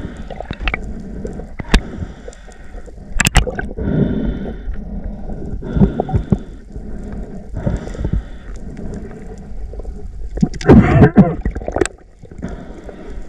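Underwater sound picked up by a camera in its housing: water gurgling and rushing, with scattered sharp clicks and knocks. There is a louder burst of gurgling about eleven seconds in.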